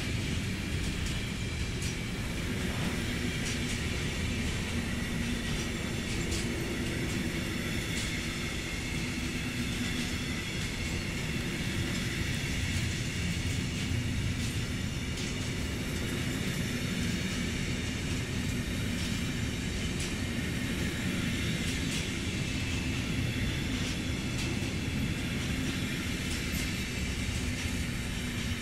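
Intermodal freight train's wagons, loaded with semi-trailers and tank containers, rolling past very slowly: a steady low rumble with scattered faint clicks from the wheels on the rails.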